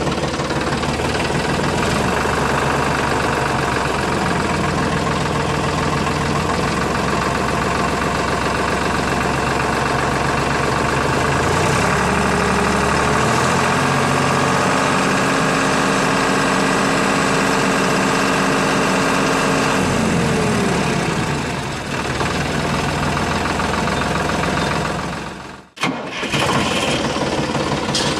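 Engine running steadily, its pitch rising about halfway through and falling back a few seconds later; the sound cuts out for a moment near the end and then resumes.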